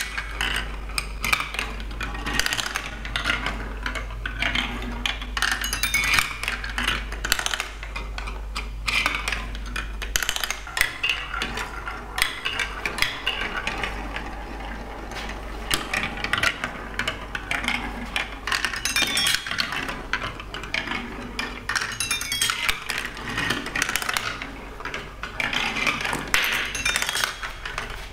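Plastic balls rolling and clattering through a plastic building-block marble run, with many quick clicks and knocks as they hit funnels, chutes and ramp steps.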